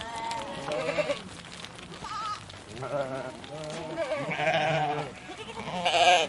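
A flock of sheep bleating, several animals calling over one another in wavering, overlapping bleats, with the loudest bleat near the end.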